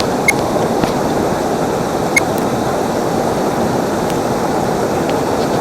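Steady rush of flowing water, with two short, bright plinks: one just after the start and one about two seconds in.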